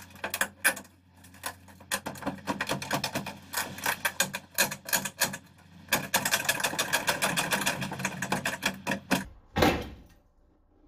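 Rusty steel front wing of a Mk2 Ford Escort being torn off by hand: rapid crackling and cracking of rotten sheet metal and spot welds giving way, several cracks a second, with one louder crack about nine and a half seconds in.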